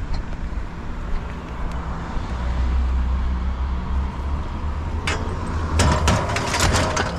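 A steady low vehicle rumble, then from about five seconds in a rapid run of clanks and rattles as an old rusted metal dolly is loaded into the truck.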